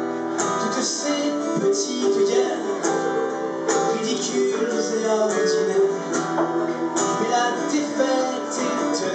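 Acoustic guitar strummed in a live song, an instrumental stretch between sung lines.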